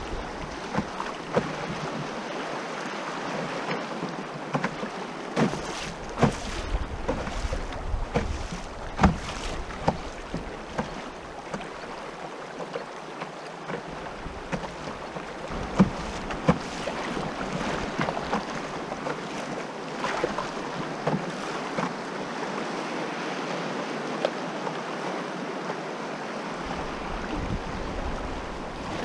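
River current rushing and rippling around a moving canoe, with occasional sharp knocks. Wind buffets the microphone at the start and again near the end.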